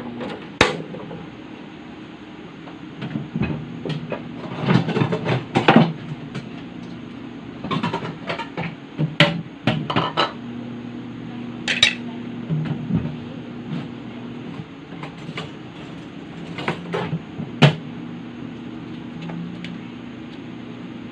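Kitchen clatter: scattered knocks and clinks of pans and utensils, the sharpest knock near the end, over a steady low hum.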